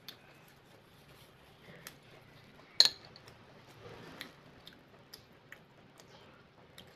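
Metal chopsticks clinking sharply once against a plate, with a brief ringing, about three seconds in, among faint small clicks of utensils and eating.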